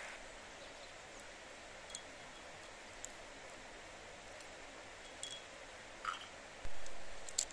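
Light clicks and taps of cracked walnut shells being picked apart by hand and set down on a brass mortar lid, with one louder dull thump near the end, over the steady rush of a river.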